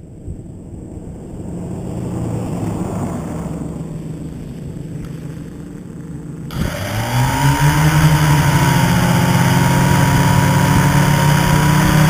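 Multirotor's electric motors and propellers spinning up suddenly about halfway through, then holding a loud, steady whine that wavers slightly in pitch. Before that, only a fainter low hum.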